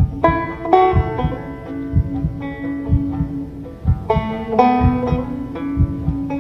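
Slow banjo music: plucked notes ringing over a held tone that shifts pitch, with a low, regular beat underneath.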